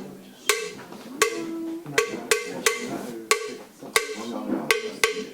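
A series of sharp knocks or strikes at uneven intervals, about two a second, each ringing briefly at the same pitch.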